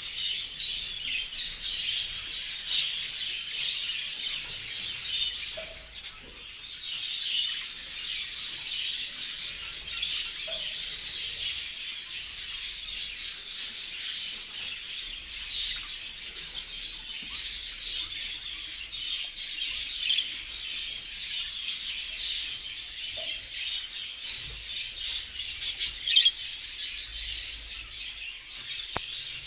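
A flock of budgerigars chattering and warbling together, a dense, unbroken mix of many overlapping high chirps.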